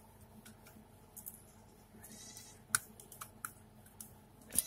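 Faint, scattered clicks and taps of plastic and sheet metal as slim laptop optical drives are handled, with two sharper clicks near the end of the second and third seconds and one just before the end. A brief high squeak sounds about two seconds in.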